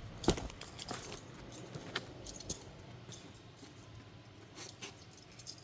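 Keys jingling and small metal clicks as lock hardware is handled and pushed into place, the sharpest click about a quarter second in, then fewer and fainter clicks.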